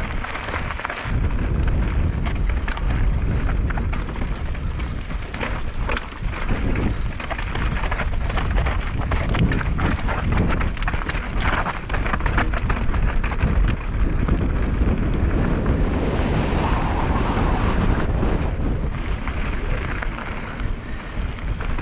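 Mountain bike riding fast down a dirt trail: heavy wind rumbling across the action camera's microphone, with the tyres rolling over the ground and the bike rattling and clattering over bumps.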